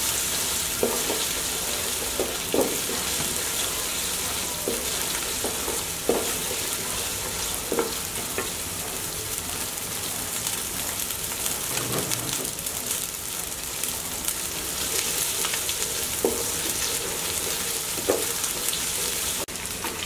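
Chopped onions with ginger paste and whole spices sizzling in hot oil and ghee as they fry to brown. The hiss is steady, broken every second or two by a short scrape of the stirring spoon.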